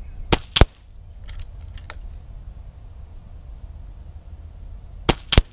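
Two shots from a .25 calibre Avenger PCP air rifle firing slugs: each is a sharp crack followed about a quarter second later by a second sharp crack, the first pair about a third of a second in and the second near the end. Faint clicks in between, about a second and a half in, as the rifle is cycled for the next shot.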